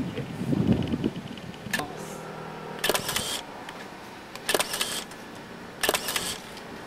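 Single-lens reflex camera shutter firing three times, about a second and a half apart, each shot a short sharp burst, with a fainter click a little before the first.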